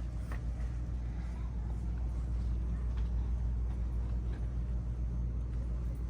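Steady low rumble of store background noise, with a few faint clicks.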